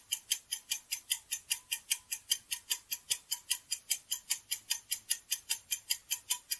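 Clock ticking sound effect of a quiz countdown timer: a fast, even run of short ticks, about six a second, that stops at the end of the countdown.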